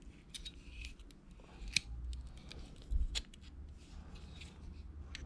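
Small metallic clicks and scrapes from a Leatherman multi-tool's screwdriver working loose the battery cap of a Trijicon SRO red dot sight, with hand handling of the tool. The sharpest click comes a little under two seconds in, and a soft thump with another click about three seconds in.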